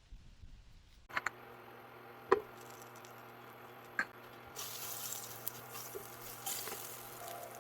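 Kitchen sounds: a few sharp clacks over a steady low hum, then the tap running into the sink from about halfway through.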